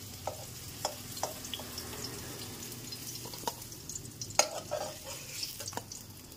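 Fried potato and pointed gourd pieces being tipped out of a hot kadai onto a steel plate: scattered light clicks and scrapes of the pieces landing, over a faint sizzle of still-hot oil, with a sharper clink about four and a half seconds in.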